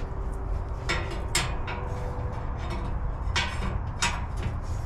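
A metal grill-lifting tool scraping and clinking against the stove's metal grill grate as it is hooked in to lift the grate out: four short scrapes, spaced irregularly.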